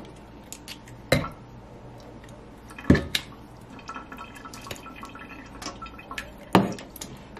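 Raw chicken being washed and scraped with a knife in a metal pot of salted water: faint dripping and splashing, with three sharp knocks about a second in, near three seconds and near the end.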